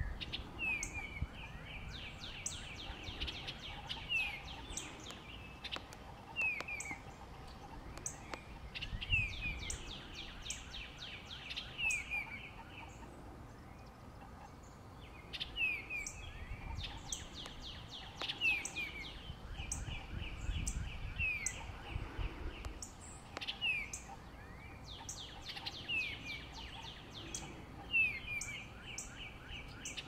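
Female eastern bluebird chattering: phrases of short falling notes running into a rapid trill, repeated every few seconds, with thin high chips between.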